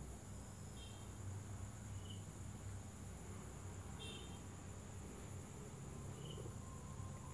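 Faint background sound: a steady high hiss with short high chirps four times, about every second or two.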